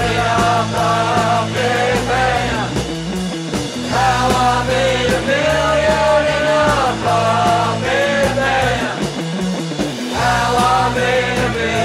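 Rock song with male voices singing loudly over a band backing, with long held notes that bend and slide in pitch.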